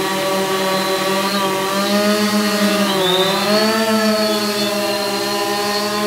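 VulcanUAV X8 octocopter in flight, carrying a 5 lb payload: eight brushless motors with 15-inch carbon-fibre props give a steady, loud multi-toned hum. The pitch dips about three seconds in and climbs back as the throttle changes.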